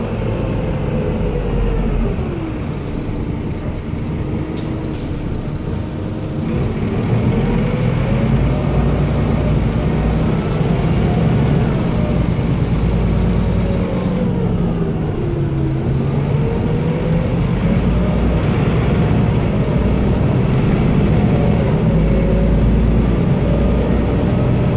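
Van Hool NewA330 city bus heard from inside the passenger cabin, its engine and ZF automatic gearbox running under a steady low rumble. A whine falls in pitch as the bus slows, rises as it pulls away, falls again around the middle and rises once more.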